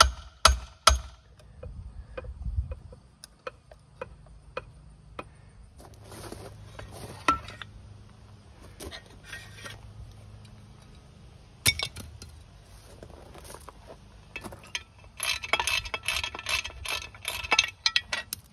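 Hammer blows on the casing of a 1961 Johnson outboard being taken apart: about four sharp strikes in the first second. These give way to scattered metallic clinks and knocks of hand tools on the case, with a burst of rapid clicking and clinking near the end.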